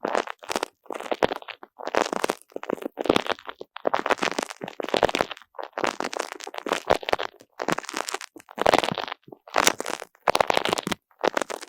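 Sticky spiky squishy ball being squeezed and released over and over, each squeeze a short crackling, tacky burst, with short gaps between them.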